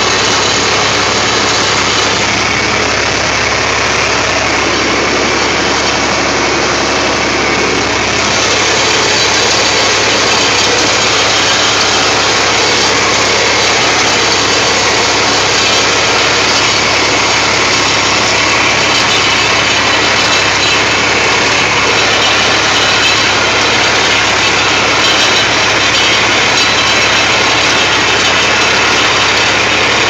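John Deere 4020's six-cylinder engine running steadily, pulling and driving a New Holland 243 small square baler that is working and baling hay. The noise gets a little louder about eight seconds in.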